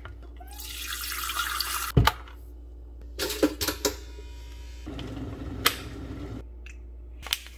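Water running into a glass electric kettle for about two seconds, then a sharp knock. A few light clicks and knocks follow, with a brief soft hiss.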